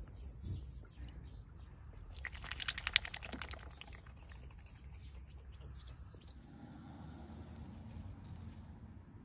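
Steady high-pitched insect chirring that stops about six and a half seconds in. A short, rapid rattle of clicks comes about two to three seconds in and is the loudest sound.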